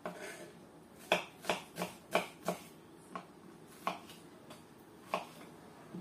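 Kitchen knife slicing juicy onion on a wooden cutting board: about nine sharp knocks of the blade striking the board, irregularly spaced.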